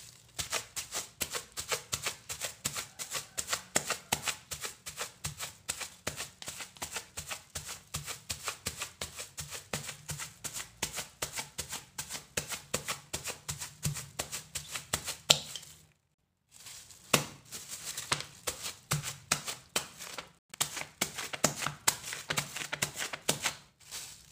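A plastic-wrapped bottle used as a pestle thumping down quickly and steadily, about three or four strokes a second, onto warm cooked rice in a woven bamboo tray, mashing the rice for rice crackers (krupuk puli). The pounding breaks off briefly twice in the second half.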